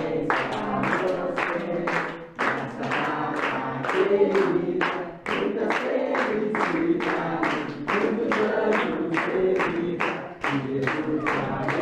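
A group of people singing a birthday song together while clapping along in steady time, about three claps a second.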